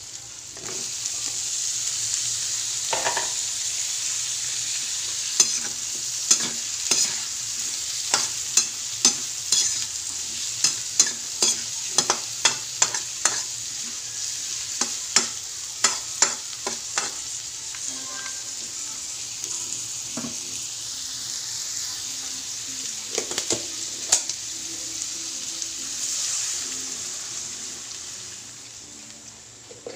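Onion, garlic and squash chunks sizzling in oil in a metal wok while a metal spatula stirs, scraping and clacking against the pan about twice a second. Near the end the sizzling dies down as stock or water goes in.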